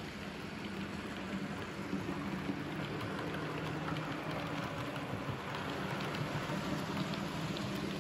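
00 gauge model trains running around the track: a steady whirr of the locomotive motors with a fine patter of wheels clicking over the rail joints.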